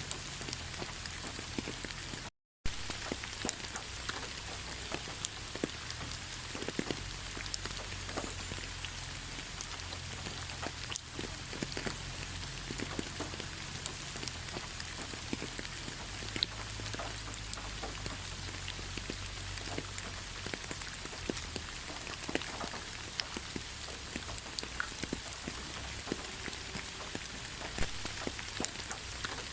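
Steady gentle rain, a continuous hiss with many individual drops ticking. It cuts out to silence for a split second about two and a half seconds in.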